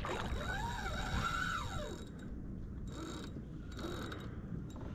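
Fishing reel whirring as it is worked, its pitch rising and then falling over the first two seconds before it fades.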